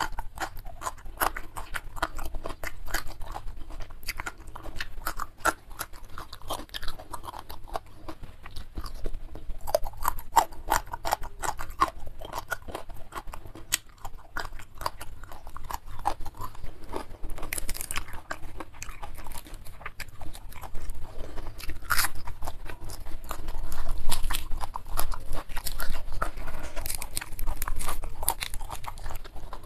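Close-miked chewing of a mouthful of food: a steady run of wet, crunchy clicks that goes on throughout.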